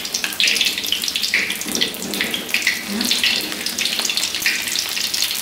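Battered jackfruit rind pieces deep-frying in hot oil in a wok: a steady, dense crackling sizzle.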